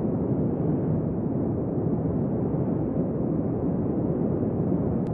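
A steady, muffled rumbling noise, even throughout, with no tones, beat or voices in it.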